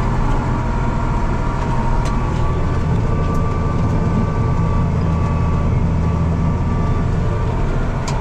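Farm tractor's diesel engine running steadily: a low, even drone with a faint thin whine above it and a couple of light clicks.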